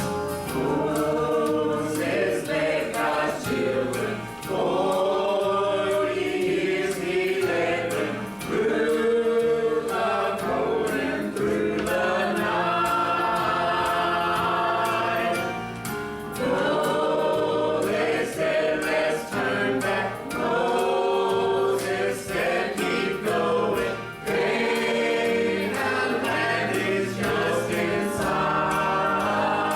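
A group of voices singing a gospel hymn with instrumental accompaniment, the phrases held and flowing over steady bass notes.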